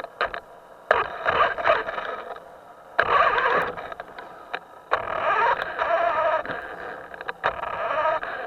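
Small electric motor of a Himoto RC boat buzzing in bursts of throttle, each starting suddenly, about one, three and five seconds in, and dying away between, with a thin, tinny quality.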